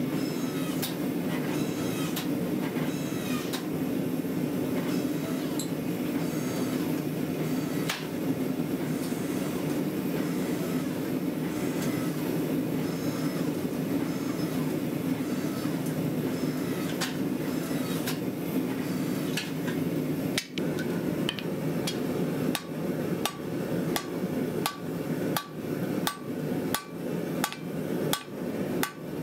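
Power hammer pounding a glowing bar of 5160 steel in fast, continuous blows while the tang is drawn out. About two-thirds of the way in this gives way to separate hammer blows on steel over an anvil, about two a second, each with a short ring.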